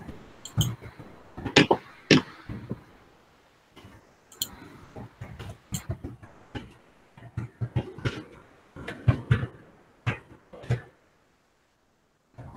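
Typing and clicking on a computer keyboard, picked up through a video-call participant's microphone: irregular taps with some heavier knocks, cutting out to silence for about a second near the end.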